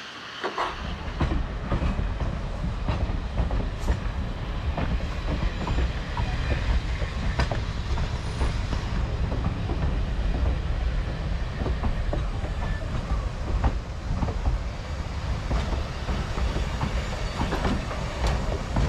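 Steel-wheeled passenger coaches and an open-air car rolling past close by, among them a 1911 Barney & Smith coach: a steady low rumble with irregular clicks and clanks of the wheels on the track.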